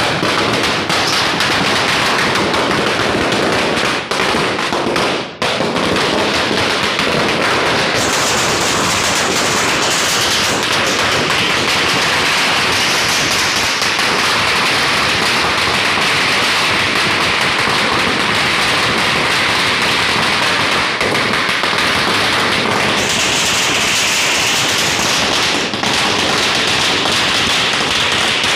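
A long Diwali firecracker string (a ladi) going off in one rapid, unbroken rattle of bangs, with brief breaks about four and five seconds in.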